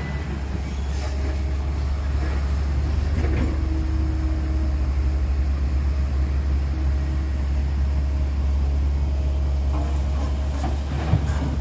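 Diesel engines of heavy machinery running, a steady low rumble from a loaded dump truck pulling away and a Caterpillar excavator at work. Near the end a short thud as the excavator's bucket drops dirt into a dump truck's bed.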